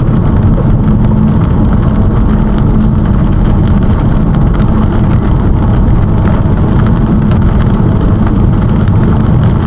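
Vehicle driving noise heard from inside the cab: a steady, loud low rumble of engine and road with a constant hum.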